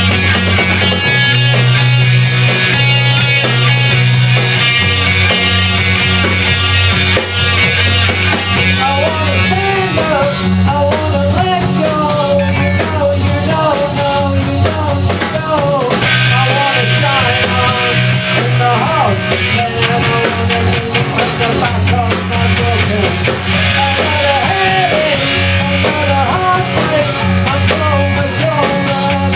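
Live rock band playing: electric guitar, bass guitar and drum kit, with a voice singing the melody from about nine seconds in.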